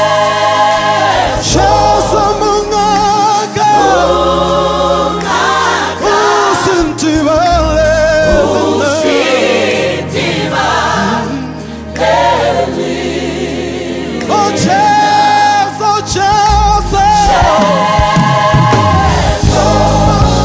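Gospel vocal group singing in close harmony over a low bass line, with the voices holding long notes with vibrato.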